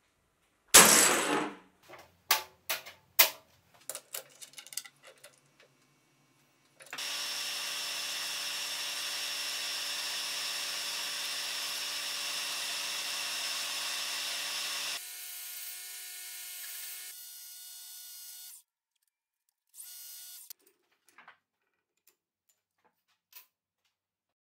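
A small machined steel ring dropped onto a steel bench strikes with a ringing clang and rattles to rest in a few quick, fading knocks. A metal lathe then drills a hole in a spinning steel blank, running steadily with a hum of even tones for about eight seconds before dropping to a quieter run-down and stopping; a few light clicks follow.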